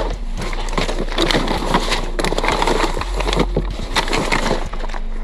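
Rummaging through a plastic storage bin: bags and loose items rustling, scraping and knocking against the plastic in quick irregular bursts.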